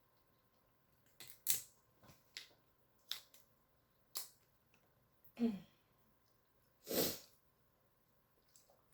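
King crab shell being cracked and pried apart by hand, giving a few sharp snapping clicks. A brief low vocal grunt comes about five and a half seconds in, and a short breathy sniff or exhale near seven seconds.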